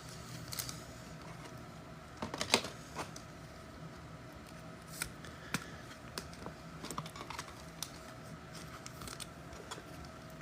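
Trading cards being handled at a table: quiet, scattered clicks and light slides of card edges against one another, a small cluster about two and a half seconds in, over a faint steady hum.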